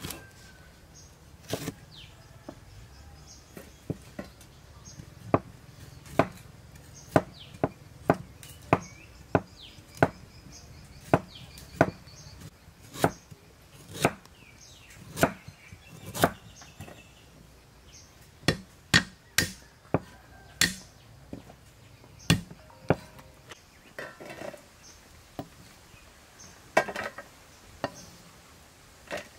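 A cleaver chopping lemongrass stalks and ginger on a thick wooden chopping block. Each cut is a sharp knock, coming at an uneven pace about one every half second to a second, with a pause of a few seconds near the end.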